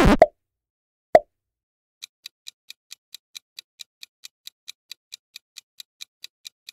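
Quiz sound effects: a short pop about a second in, then a countdown timer's ticking from about two seconds in, even ticks at about four to five a second. Just before the pop, the tail of a louder sound effect with gliding tones ends.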